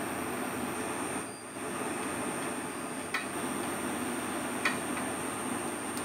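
Steady background hiss that thins briefly about a second in, with two light, sharp clicks about a second and a half apart near the middle, the second a little louder.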